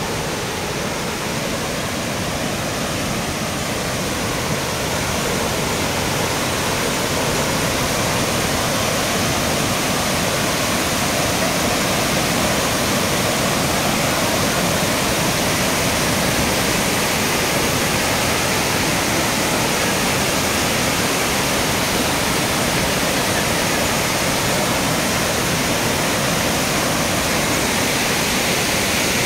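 Floodwater rushing in a swollen torrent, a flash flood after a cloudburst, as a steady, unbroken rush that grows a little louder about six seconds in.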